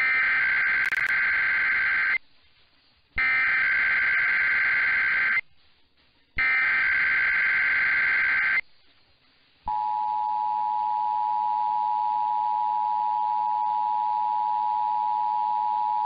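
Emergency Alert System Required Monthly Test heard over AM radio: three bursts of SAME header data tones, each about two seconds long with about a second's silence between them. About ten seconds in, the EAS attention signal starts, a steady two-tone beep that holds on.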